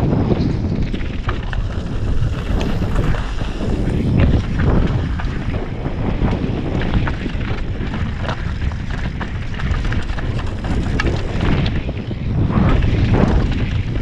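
Wind buffeting a helmet-mounted camera's microphone during a fast mountain-bike descent, with the tyres crunching over loose rock and gravel and the bike rattling with many short knocks over the bumps.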